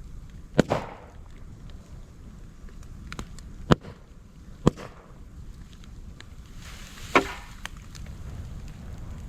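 Moso bamboo burning in an open fire, with sharp loud pops as the culms burst in the heat: a double pop about a second in, then single pops at roughly one-second to two-second gaps. Fainter crackling and a low steady rumble of the fire sound between the pops.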